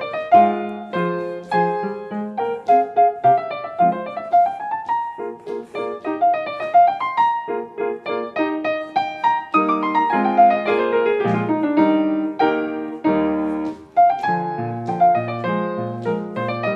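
Solo piano playing accompaniment for a ballet class exercise: a steady stream of notes, with a long falling run about ten seconds in.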